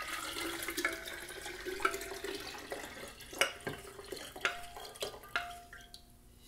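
Salt brine pouring from a glass measuring pitcher into a large empty glass jar while a wooden spoon stirs in the pitcher. The pour gets quieter toward the end. Several light knocks of the spoon against the glass ring briefly.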